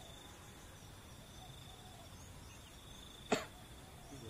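A steady, high-pitched insect trill from the pond-side grass, with one short, sharp burst of sound about three seconds in that is the loudest thing heard.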